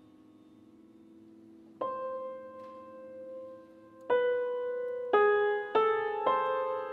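Grand piano played solo. A lingering chord dies away, then single notes are struck about two seconds apart. Near the end they come faster, about half a second apart.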